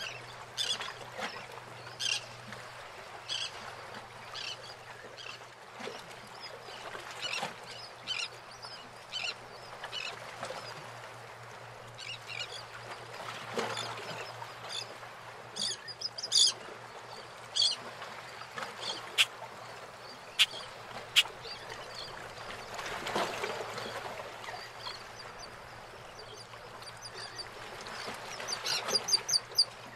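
Birds calling again and again in short high calls, with a quick run of calls near the end, over the steady wash of harbour water around moored boats. A few sharp clicks come about two-thirds of the way through.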